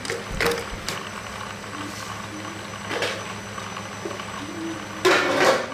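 Metal wok lid lifted off a cooking pan, giving a loud half-second clatter about five seconds in, with a few lighter knocks before it, over a steady low mechanical hum.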